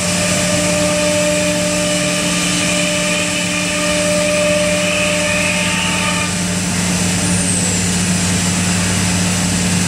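C.R. Onsrud Panel Pro 145G16C CNC router running with a loud, steady machine hum. Several higher whining tones over it drop out about six seconds in.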